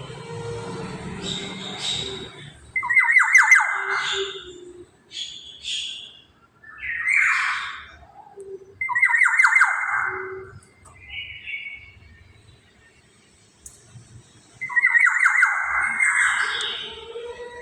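Black-naped oriole giving harsh, rasping squawks: four loud calls a few seconds apart, with a few short fainter notes between them.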